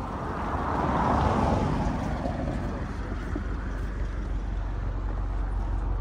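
2022 Subaru WRX's turbocharged 2.4-litre flat-four idling, a steady low hum. A broad rush of noise swells and fades in the first two seconds.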